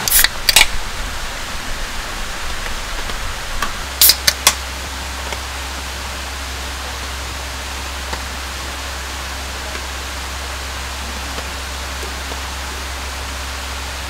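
Steady rushing water noise from the rainy valley campsite, with two sharp clicks near the start and three more in quick succession about four seconds in.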